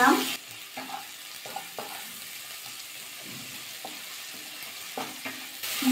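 Sliced onions sizzling steadily in hot mustard oil in a kadai while being stirred with a spatula, with a few soft scrapes of the spatula against the pan.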